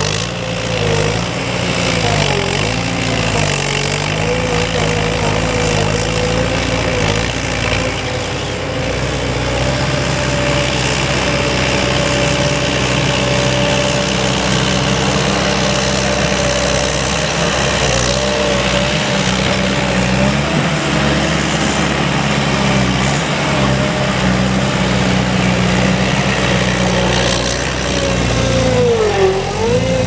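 Gehl SL 5640 skid steer loader on VTS rubber tracks, its diesel engine running steadily while it works the bucket in loose dirt. The pitch dips and recovers a few times as the machine takes on load, most clearly twice: once near the start and once near the end.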